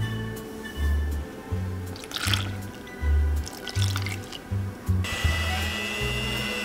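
Liquid is poured from a jug into a glass bowl of flour. About five seconds in, an electric hand mixer with dough hooks starts and runs with a steady whine, kneading croissant dough. Background music plays throughout.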